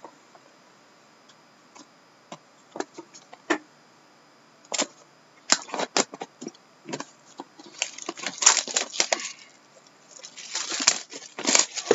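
A shrink-wrapped trading card box being handled: scattered taps and clicks, then two stretches of crinkling and crackling as its plastic wrap is torn and pulled off.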